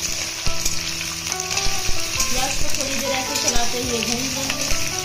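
Freshly added sliced onions sizzling in hot mustard oil in a kadhai, stirred with a spatula that knocks and scrapes against the pan now and then.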